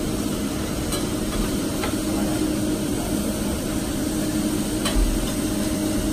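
Steady droning hum and hiss of a restaurant dining room's background noise, with a low bump about five seconds in.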